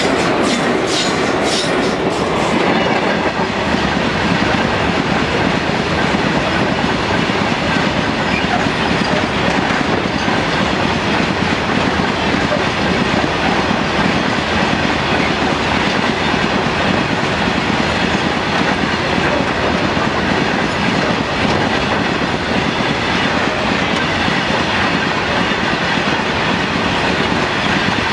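A long freight train of blue open-top steel wagons rolling past close by, its wheels clattering steadily over the rail joints. A quick run of sharp clicks sounds in the first two seconds, then the rolling noise stays loud and even.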